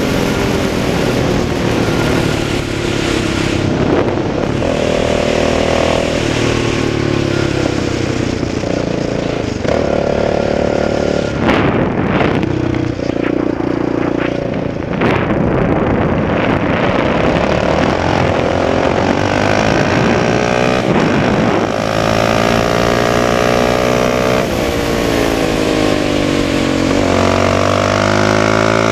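Yamaha Raptor 700R quad's single-cylinder four-stroke engine under way, its pitch rising and falling again and again as it revs up through the gears and eases off.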